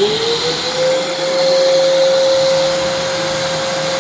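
American Micronic 21-litre wet & dry vacuum cleaner's 1600 W motor running loudly, its whine rising in pitch over about the first second and then holding steady over a strong rush of air.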